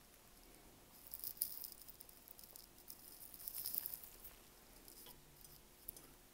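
Faint rattling and clinking of small hooked metal lab weights being handled, in two short spells.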